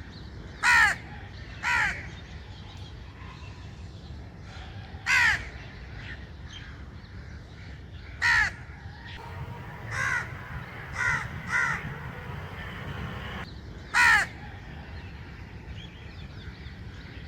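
Crow cawing: about eight short single caws at uneven intervals, some louder and some fainter, over a steady low background rumble.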